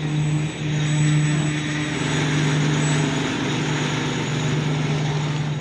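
Pakistan Railways train, its diesel locomotive engine running with a steady low hum. A hissing rolling noise grows about two seconds in.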